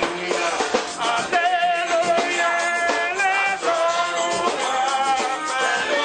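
Music with singing.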